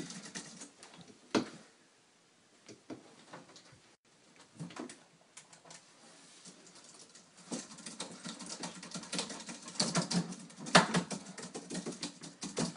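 Typing on a computer keyboard: scattered keystrokes at first, then a fast, steady run of key clicks from a little past halfway.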